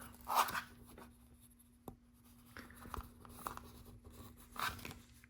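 Plastic LEGO pieces being handled and picked out: faint scratchy rustling twice, with a few small clicks in between, over a faint steady hum.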